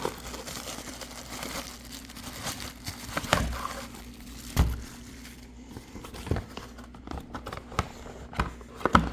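A cardboard shipping box being opened by hand: rustling and crinkling of packaging, with several sharp knocks and bumps as it is handled, the loudest about three seconds in, near the middle and at the very end.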